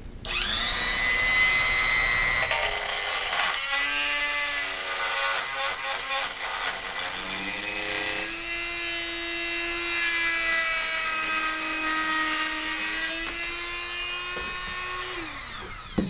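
Dremel rotary tool whining at high speed as it cuts through a length of drain-snake cable. It spins up just after the start, its pitch sags for a few seconds in the middle as it bears into the cable, and it winds down near the end.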